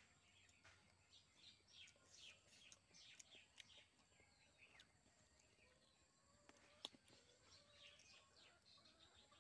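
Faint birds chirping: short falling chirps repeated many times, with a single sharp click about seven seconds in.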